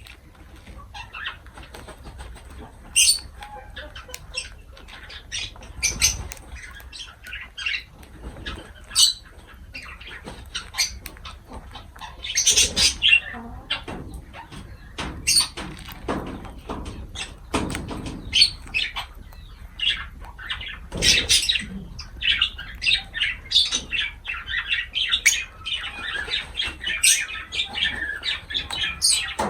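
Lovebirds chirping and squawking in short bursts, mixed with short sharp clicks and fluttering; the chirping grows denser near the end.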